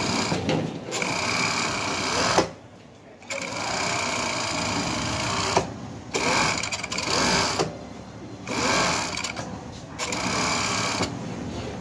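Industrial overlock (serger) machine stitching a wide pico edge along fabric, running in several spurts of a couple of seconds with short stops between them.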